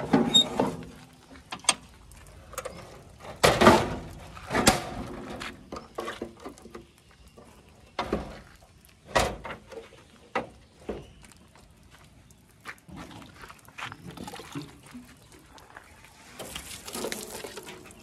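Irregular knocks and rattles from hands handling a truck's front grille and the fittings behind it. The loudest knocks come about three to five seconds in and again around nine seconds.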